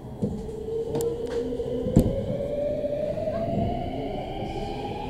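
Electric train (JR 5000 series coupled with 223 series) traction motors whining, the pitch rising steadily as the train picks up speed, over the rumble of running on the track. A few sharp clicks sound along the way, the loudest about two seconds in.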